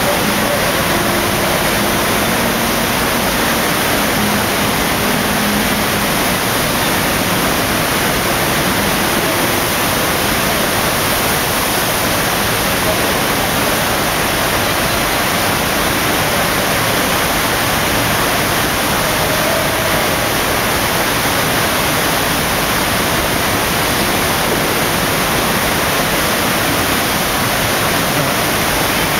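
Loud, steady rush of water from a FlowRider wave machine, a thin sheet of water pumped at speed up a padded slope, with no let-up.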